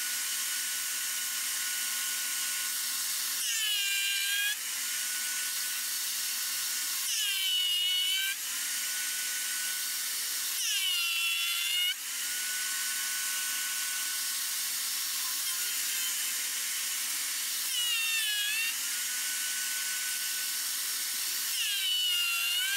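Vevor 12.5-inch benchtop thickness planer with a two-blade cutterhead running steadily while boards are fed through it. Its whine sags in pitch and recovers five times, louder each time, as the blades take a pass through the wood.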